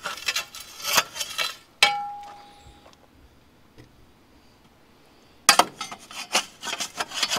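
A metal tool scraping and knocking packed dirt and debris out of a bulldozer: quick scrapes and clinks, then a sharp metal knock about two seconds in that rings briefly. After a quiet pause of about three seconds, dense scraping and clinking starts again near the end.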